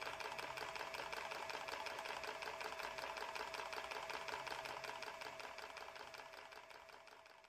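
Small wooden blacksmith automaton's mechanism running in a fast, even mechanical clatter with a faint steady hum underneath, fading out over the last two seconds.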